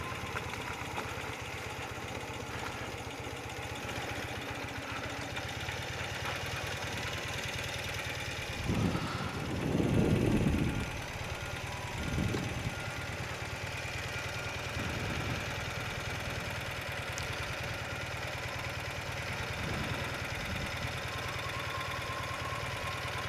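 Old BMW motorcycle engine ticking over at low revs, running steadily, with a few brief louder swells about nine to twelve seconds in.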